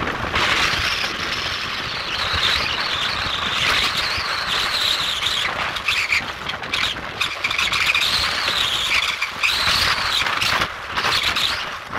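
A vehicle driving over a rough dirt back road, with a loud, high-pitched squeal that wavers up and down in pitch and is broken by bumps and knocks.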